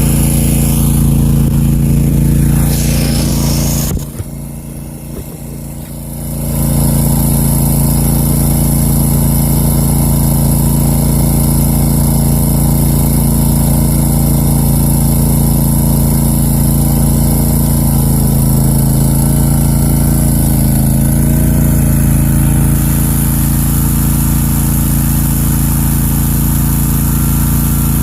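Country Clipper zero-turn mower's engine running steadily, briefly dropping quieter for about two seconds around four seconds in and then coming back to full level.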